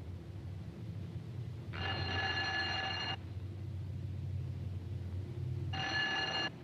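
A bell rings twice, first for about a second and a half, then, after a pause of a little over two and a half seconds, for under a second, with a steady low hum underneath.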